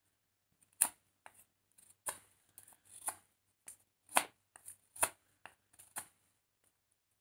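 Knife blade whittling a wooden butter-knife blank: a series of crisp shaving cuts through the wood, the loudest about once a second, stopping a little after six seconds in.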